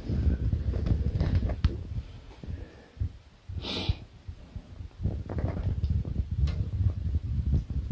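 Handling noise from a hand-held camera close to the microphone: an uneven low rumble with scattered light knocks, and one short, hissy breath near the middle.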